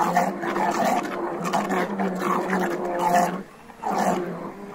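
Electric food processor running with a steady motor hum while its blade chops peppers into a paste, with uneven whooshing and rattling from the chopped pieces. It cuts out for a moment about three and a half seconds in and starts again.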